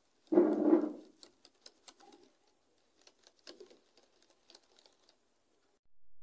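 Wire whisk clicking and tapping against a glass bowl while beating a runny cake batter, in quick irregular ticks. A brief louder noise comes about half a second in.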